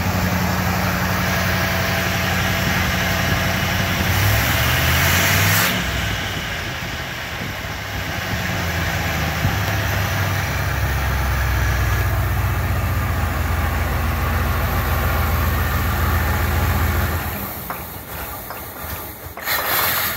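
Buick 430 V8 running smoothly at idle, revved briefly about four seconds in and settling back to a steady idle. The engine note drops away near the end, followed by a short loud noise.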